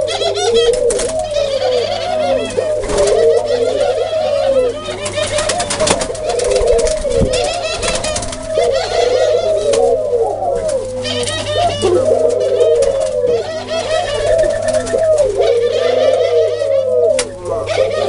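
Domestic ringneck doves cooing over and over, one coo after another with barely a pause. Higher chirping calls are mixed in, over a steady low hum.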